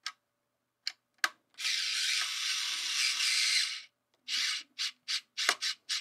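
Small screwdriver tightening the wire terminal screws on a smart light switch module. A few light clicks, then a steady rasp lasting about two seconds, then half a dozen short rasps as the screw is turned home.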